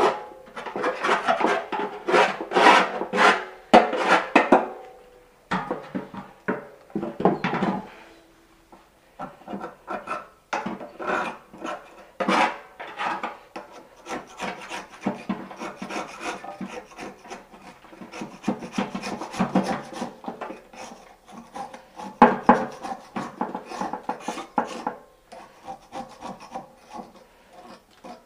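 Repeated hand scraping and scrubbing strokes on a hard surface, in irregular quick runs with a short pause about a third of the way in.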